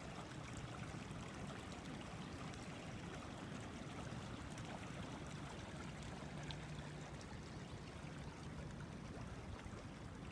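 A small creek flowing: a faint, steady rush of water.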